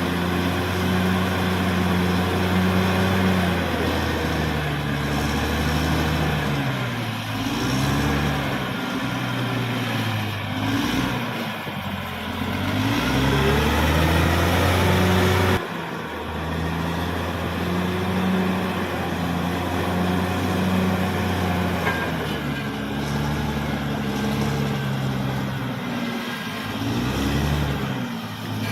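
Caterpillar D6R XL bulldozer's diesel engine working under load, its pitch repeatedly rising and falling as the throttle and load change, with an abrupt jump in the sound about halfway through.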